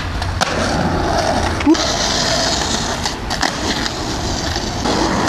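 Skateboard wheels rolling on asphalt, a steady rumble with a few short clicks.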